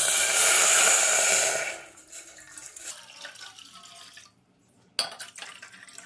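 Water poured into a tea pan in a steady stream for about two seconds, then tailing off. A single sharp knock about five seconds in.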